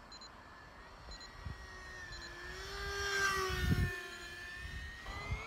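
Electric motor of a T-50 radio-controlled model jet whining in a low pass at near full throttle: the whine grows louder, then drops in pitch as the plane goes by about three to four seconds in.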